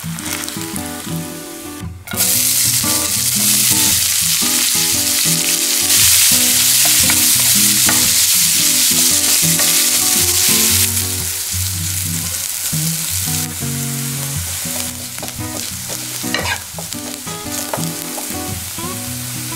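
Food sizzling in a hot nonstick frying pan: a slice of Spam, then sliced onions frying as they are stirred. The sizzle gets much louder about two seconds in and eases off a little after about eleven seconds.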